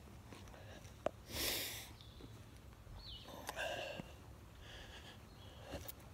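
One short, sharp sniff close to the microphone about a second and a half in. Faint high chirps follow later.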